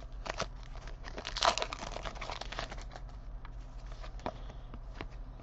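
Hockey-card packs and cards being handled: crinkling and rustling of the foil pack wrapper with scattered soft clicks of cards, one louder crinkle about a second and a half in.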